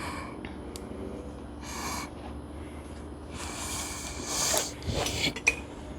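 A person breathing out hard in several puffs, with a few faint clicks of parts being handled.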